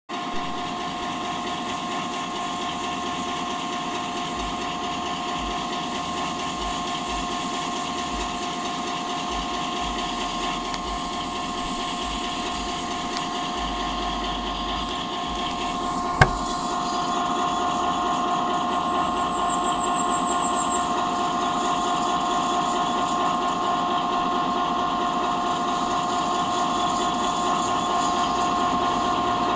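Freight train running by, a steady rumble with a steady two-note whine held throughout. A sharp click about sixteen seconds in, and the train noise grows a little louder after it.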